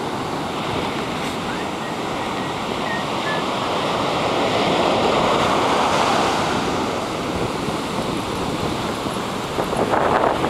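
Ocean surf breaking and washing up the beach, a steady rush that swells about halfway through and then eases. Near the end, gusts of wind buffet the microphone.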